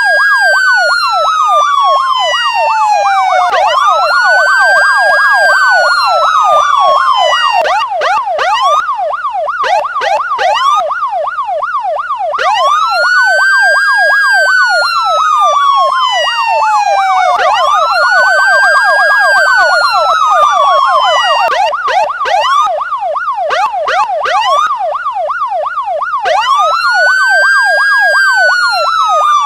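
Police car siren sounding: a wail that rises quickly and falls slowly over about four seconds, repeating, over a fast yelp warbling up and down. Twice the wail drops out for a few seconds, leaving only the yelp.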